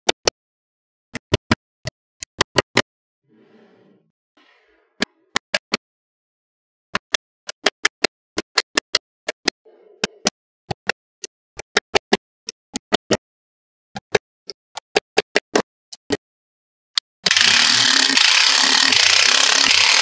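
Small magnetic balls snapping one at a time onto a wall of magnetic balls: sharp single clicks in quick runs with short pauses. From about three seconds before the end, a loud continuous rasping noise takes over.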